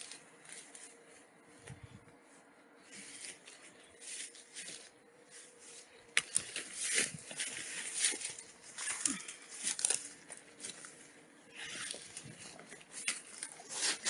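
Footsteps through dry grass and undergrowth, with leaves and stems crackling and brushing past in irregular bursts that thicken from about six seconds in.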